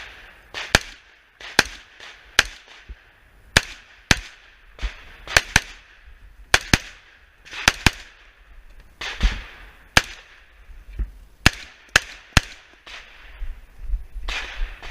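AR-15 rifle firing .223 rounds in a rapid string of about twenty shots, irregularly spaced and often in quick pairs, each shot followed by a short ringing echo.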